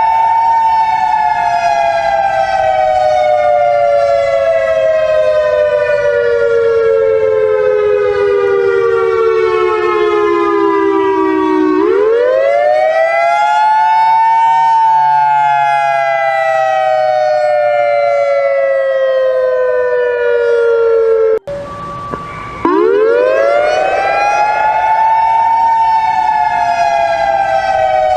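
Civil defense siren wailing in two close pitches. It winds up and then slowly falls over about ten seconds, then winds up again about twelve seconds in. Near the two-thirds mark it cuts off abruptly for about a second, leaving a fainter steady tone, then winds up once more.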